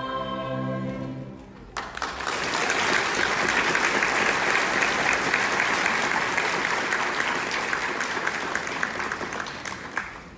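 Music holding a last chord that ends just over a second in, then an audience clapping for about eight seconds, thinning out near the end.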